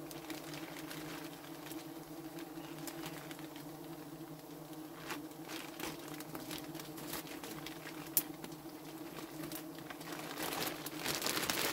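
Clear plastic bag crinkling and rustling as wild honeycomb is cut with a knife and pushed into it, the crinkling busier near the end. Underneath, a steady hum of bees flying around the nest.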